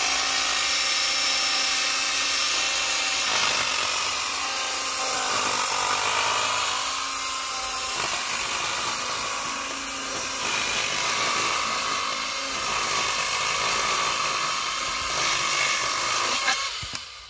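Makita UX01G 40V cordless power head with pole saw attachment, its chain cutting through a tree branch: a steady high whine with the chain rasping through the wood. It stops suddenly near the end as the branch is cut through.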